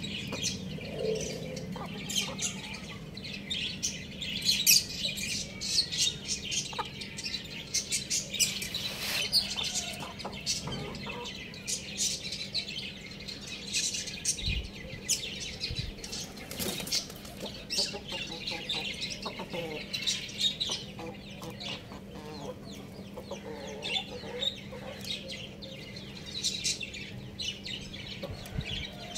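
Young roosters clucking amid busy chirping of small birds, with a couple of short low thumps about halfway through.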